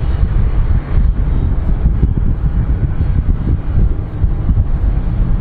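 Jet engines of a classic Airbus twin-engine wide-body airliner running as it rolls along the runway: a steady deep rumble, with wind buffeting the microphone.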